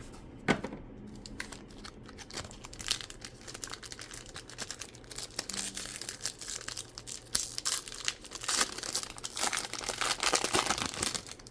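Plastic wrapping of a trading card hobby box and packs crinkling and tearing as it is ripped open by hand, in irregular crackles that grow busier and louder in the second half.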